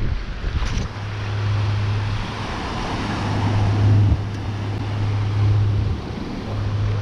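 Surf breaking and washing up a sandy beach, with a steady low rumble of wind on the microphone.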